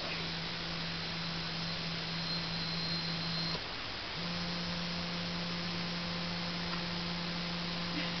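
Small electric motors of a motorized Dapol model crane running with a steady low tone as the crane swings round. It stops for about half a second after three and a half seconds, then runs again as the hook is lowered.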